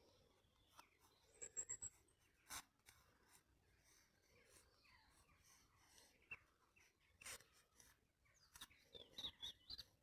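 Faint scratching of a graphite pencil drawing on sketchbook paper, with a few soft clicks. Short high chirps come in briefly about a second and a half in, and again in a cluster near the end.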